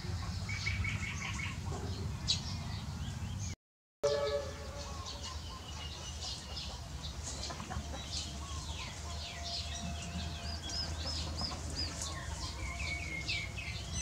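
Several birds chirping and calling in short notes and trills, with a run of five or so repeated arched notes near the end, over a steady low hum. The sound cuts out for a moment about four seconds in.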